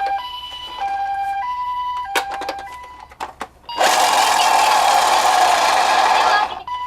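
Toy ambulance's electronic two-tone siren, alternating a higher and a lower note about every half second, with a few sharp clicks. About four seconds in it gives way to a loud, noisy hiss lasting nearly three seconds, and the two-tone siren returns just before the end.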